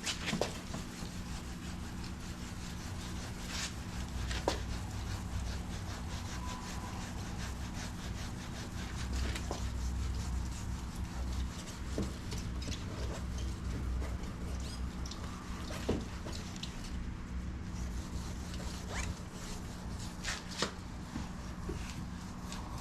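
Sandpaper rubbing back and forth over the painted plastic bumper of a Honda Element, a hand sanding that takes the finish down before polishing. A scatter of small ticks and a steady low hum run underneath.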